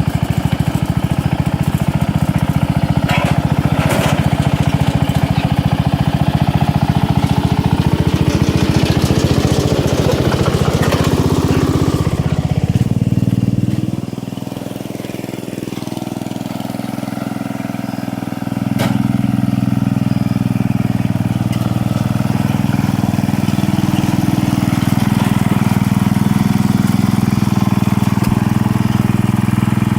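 Homemade riding lawn mower's small engine running hard under load; about 13 seconds in it drops to a lower, quieter note for a few seconds, then picks back up and runs steadily. A few sharp cracks sound over it early on and once more after the engine picks up.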